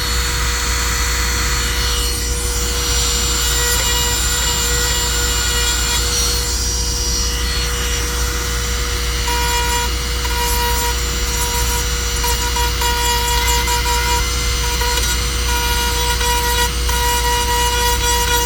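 Dremel rotary tool with a chainsaw-sharpening bit grinding down a plastic bumper tab to shape it, running at a steady pitch with a constant rasping grind.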